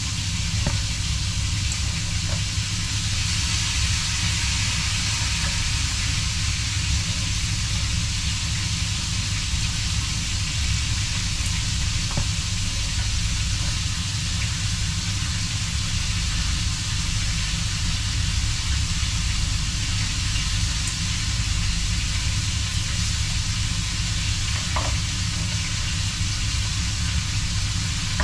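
Steady background hiss with a low hum underneath, and a few faint taps of a knife on a plastic cutting board as raw fish is sliced.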